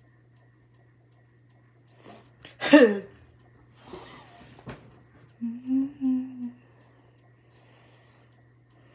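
A person's single sharp vocal outburst, loud and falling in pitch, about three seconds in, followed by breathing and then a brief hum of two or three notes lasting about a second. A faint steady low hum lies underneath.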